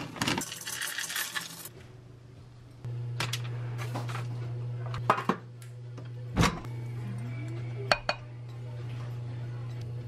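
Semi-sweet chocolate chips pouring from a bag into a ceramic bowl, a dense clatter lasting about a second and a half. After that a steady low hum takes over, with a few short knocks.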